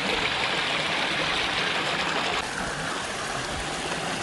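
A stream of running water, a steady rushing that turns a little quieter about two and a half seconds in.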